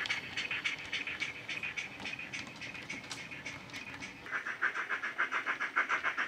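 Simulated steam exhaust chuffs of a GWR 52XX 2-8-0 tank engine, played from a DCC sound decoder through a small tablet speaker in a Hornby OO model, in a quick, even beat. About four seconds in, the chuffs grow louder and deeper.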